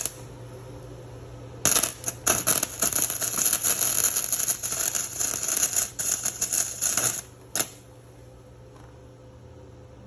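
Flux-core wire welder arc crackling in a run of short welds: it starts about two seconds in, stutters on and off for about five seconds and stops, with one more short burst just after, over a steady low hum.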